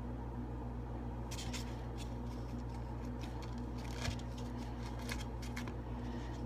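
Faint, scattered clicks and crackles of hands holding homemade slime, over a steady low hum.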